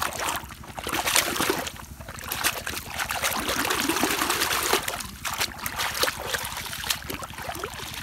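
Pond water splashing and sloshing as a plastic toy truck is swished back and forth by hand to wash off mud, a continuous run of splashes that is heaviest in the middle.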